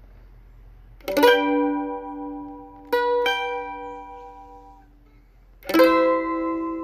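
Mandolin played slowly and sparsely: a strummed chord about a second in, left to ring, two single plucked notes around three seconds in, and another strummed chord near the end, each ringing out and fading.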